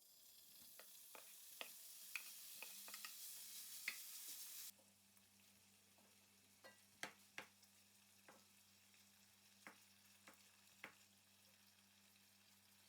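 Food sizzling in a frying pan with sharp clicks of a utensil against the pan. About five seconds in the sizzle cuts off suddenly, leaving a faint hum and occasional clicks.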